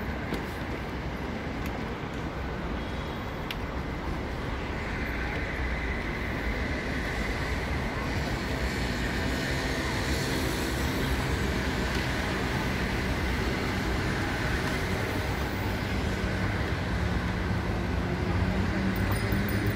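City street ambience: steady road traffic noise with people's voices in the background.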